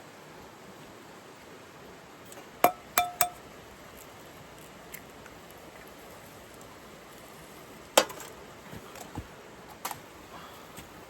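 Tableware clinking: three sharp clinks close together, the last two ringing briefly, about three seconds in, then another loud clink about eight seconds in and a few softer taps after it.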